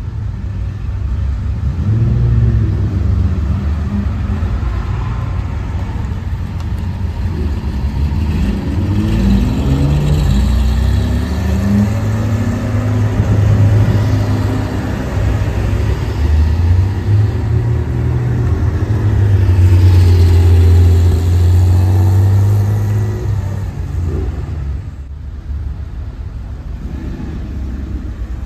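Several Porsche sports cars, among them classic air-cooled flat-six 911s, pulling away one after another, their engines revving up and down with rising notes as they accelerate. The loudest passes come past the middle, and the sound eases off near the end.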